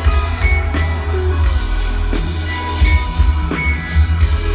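Loud live electronic music with heavy bass and held synth or organ tones.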